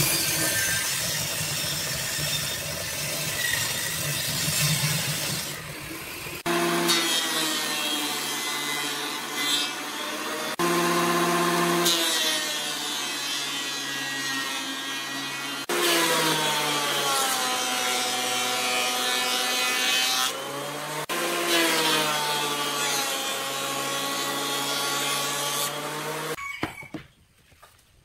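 A table saw ripping a wooden board, then a thickness planer running as boards are fed through, its motor pitch sagging under load and recovering between passes; the sound stops near the end.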